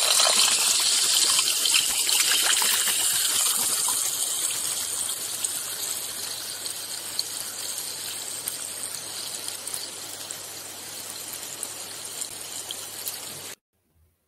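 A steady rushing hiss like running or trickling water, loudest at first and fading slowly, then cutting off abruptly near the end.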